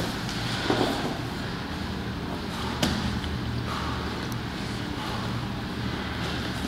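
Two grapplers scrambling on foam gym mats: bodies and limbs shifting, with a few dull knocks against the mat, the sharpest about three seconds in, over a steady low room hum.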